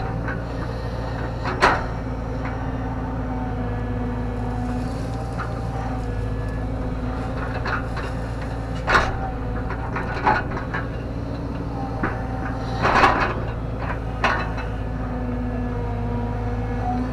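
JCB JS130 tracked excavator digging a trench: its diesel engine runs steadily under a hydraulic whine that comes and goes as the arm and bucket work. About five sharp metal clunks from the bucket and arm cut through it, the loudest about 13 seconds in.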